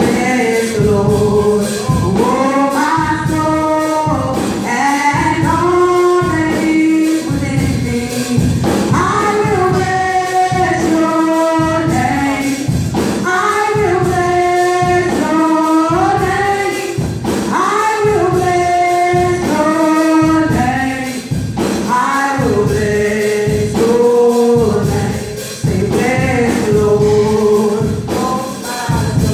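Gospel praise-and-worship singing: women's voices sing long held notes in harmony through microphones over a steady drum beat.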